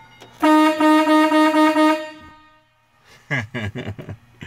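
A vehicle horn sounds for about a second and a half as one steady-pitched, pulsing tone. A man then laughs.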